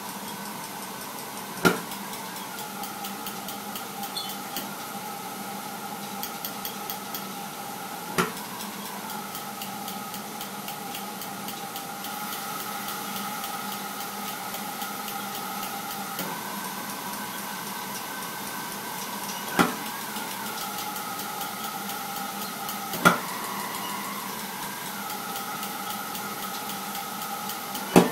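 Gas burner test rig with a steady whistling air and gas flow, its tones near 1 kHz stepping and gliding down in pitch, broken five times by a sharp crack as ignition is tried. With the air flow raised, the burner fails to stay lit.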